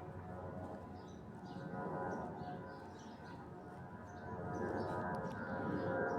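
Jet engines of an Airbus A340-312 (four CFM56 turbofans): a steady whine of several tones over a low rumble, swelling louder about two seconds in and again in the last second and a half, with birds chirping.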